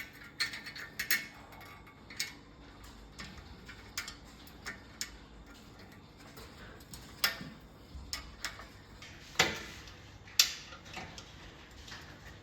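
Irregular light metallic clicks and taps as an iron bike rear rack and its fixing screws are handled and fitted to the frame, with two louder knocks about nine and ten seconds in.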